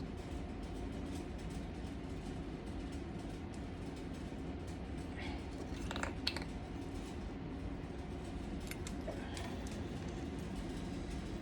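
Steady low background hum, with a few light clicks and scrapes of a spoon in a bowl as seeds are picked out of a salad, the clearest about halfway through.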